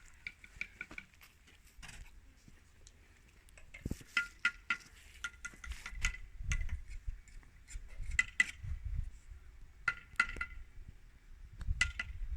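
Repeated light metallic clinks that ring briefly at the same pitch each time, coming in small clusters every couple of seconds, over a low rumble.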